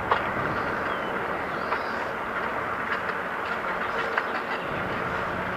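Bicycle rolling along a paved trail: a steady rolling noise from the tyres, with a few light clicks and rattles, the sharpest one just at the start.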